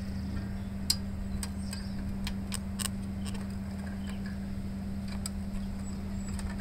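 Scattered sharp clicks and light knocks of the plastic air cleaner housing on a Honda GC160 engine being wiggled loose by hand, the sharpest about a second in, over a steady low hum.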